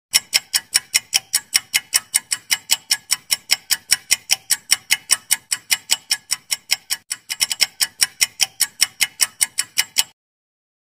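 Ticking sound effect of a quiz countdown timer: fast, even clock-like ticks, about five a second, that stop abruptly about ten seconds in.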